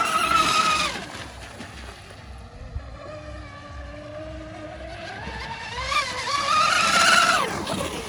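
Electric RC racing catamaran on 6S running fast past on the water, its motor giving a high whine. The whine fades and drops in pitch about a second in, then builds again from the middle to a loud second pass and falls away near the end, with water rushing under the hull.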